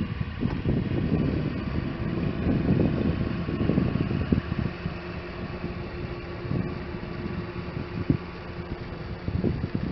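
Wind buffeting the microphone in irregular low gusts, with a faint steady hum underneath.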